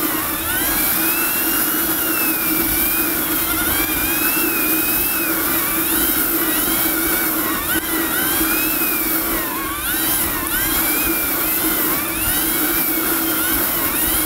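1996 Yamaha Phazer snowmobile's two-stroke engine running at speed along the trail, its whine rising and falling again and again as the throttle changes.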